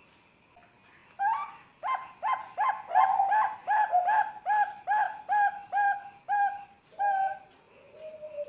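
Young zebra dove (Bangkok perkutut), about three months old, cooing: a quick run of about fifteen short coo notes, two or three a second, starting about a second in. A softer, lower, falling coo follows near the end.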